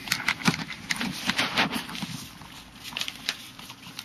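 A sheet of paper being folded and creased by hand on a tabletop: irregular crinkling and rustling with sharp little taps, busiest in the first two seconds and sparser after.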